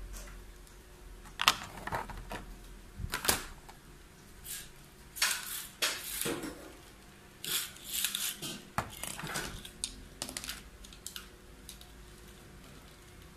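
Hard plastic Beyblade parts clicking and rattling as they are handled and fitted together, with a ripcord fed into its launcher. Sharp single clicks and short clattering, scraping bursts, the loudest click about a second and a half in.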